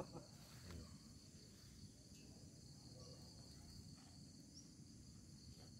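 Faint, steady, high-pitched insect chirring.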